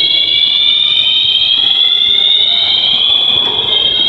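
Shopping-mall fire alarm sounders sounding continuously: a steady high-pitched tone made of several pitches at once, with no break.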